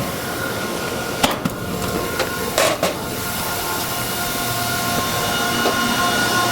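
Corn-harvest machinery running steadily, with a constant whine over the engine noise and a few sharp clanks about one to three seconds in.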